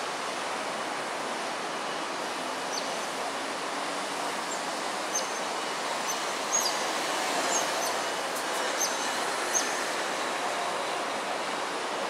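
Steady outdoor background noise with a scattered series of short, high, falling chirps, about one a second from a few seconds in.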